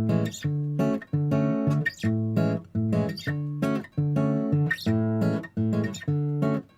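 Background music: rhythmic strummed acoustic guitar chords.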